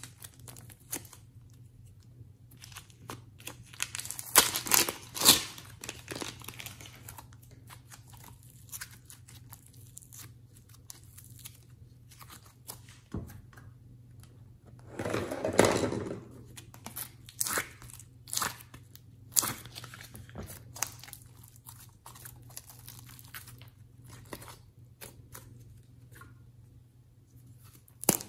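Plastic piping bags crinkling and rustling as soft clay is squeezed out of them by hand. The rustles come in scattered bursts, with louder stretches about four seconds in and again about fifteen seconds in.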